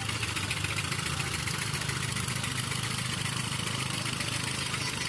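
Miniature live steam locomotive hauling a ride-on passenger train past at speed: a rapid, even exhaust beat over the steady rumble of wheels on the track.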